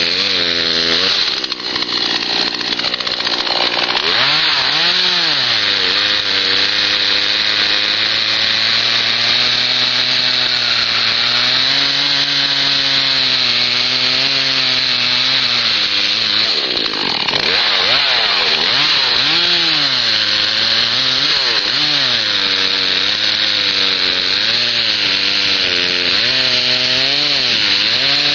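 Two-stroke chainsaw cutting the felling notch into a red oak trunk, its engine pitch rising and falling as it loads down in the cut and revs back up. The revs dip briefly about two seconds in and again about seventeen seconds in.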